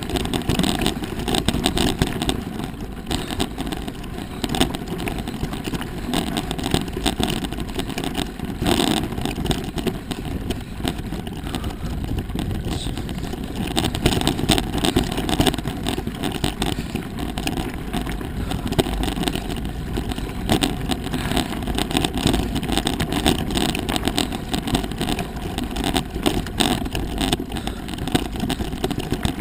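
Mountain bike rolling over a rocky singletrack: steady wind rumble with a constant clatter and rattle of tyres on stones and the bike over the rough surface.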